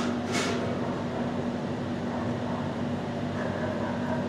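Steady mechanical hum with a constant low tone, and a brief hiss just after the start.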